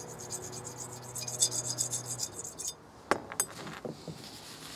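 Kerosene-soaked steel wool scrubbed rapidly back and forth along a blued Marlin .22 rifle barrel to lift rust, a fast raspy rubbing that stops a little before three seconds in. Two sharp knocks follow.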